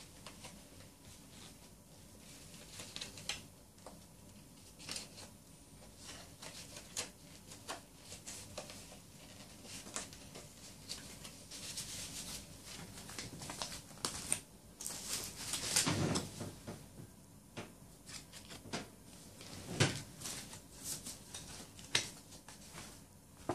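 Plastic packaging crinkling and rustling in irregular bursts of short clicks as wrapped merchandise is handled, with two louder knocks of handling about two-thirds of the way in.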